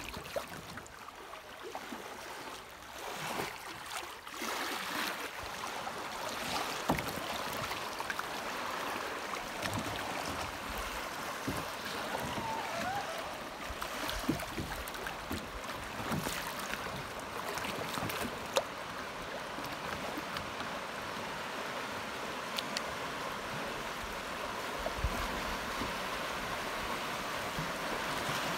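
Fast, flood-high creek water rushing and splashing through riffles around a kayak, growing louder about four seconds in, with a few sharp clicks.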